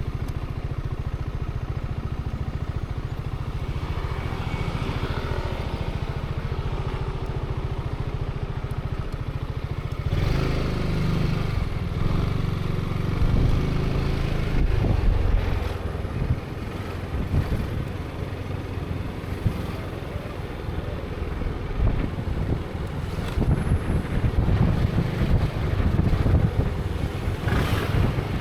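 Zontes 350E scooter's single-cylinder engine running at a steady low note. About ten seconds in it revs up and pulls away, and the engine note then rises and falls with the throttle.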